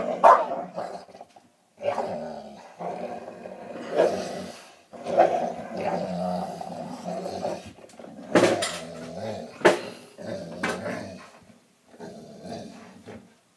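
Two dogs, one a pit bull, growling in bouts while they play tug-of-war with a toy, with a few short, sharper, louder outbursts. It is play growling, not a fight.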